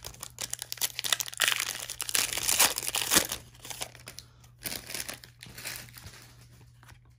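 Plastic wrapper of a trading-card pack crinkling and tearing as it is ripped open, loudest for a couple of seconds starting about a second in, then a lighter rustle that fades out.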